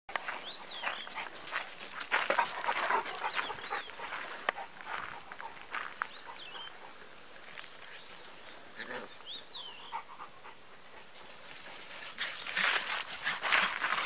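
Two puppies play-fighting on gravel: paws scuffling and crunching the stones, with panting and a few short high squeaks. The scuffling grows louder near the end.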